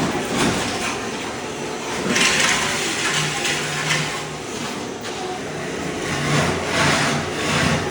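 Ride-on floor stripper scraping thin-set tile mortar off a concrete slab: a harsh, gritty scraping noise that swells and eases in uneven surges over a steady low machine hum.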